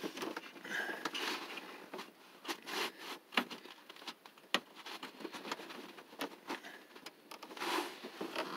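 Rubbing and scraping with scattered small clicks: hands working a rubber lower radiator hose back onto the radiator's outlet. There are two sharper clicks, about three and a half and four and a half seconds in.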